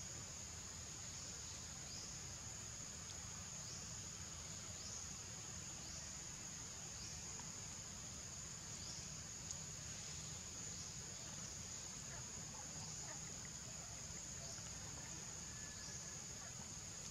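Insects making a steady high-pitched drone, with a short rising chirp repeating every second or two, over a faint low rumble.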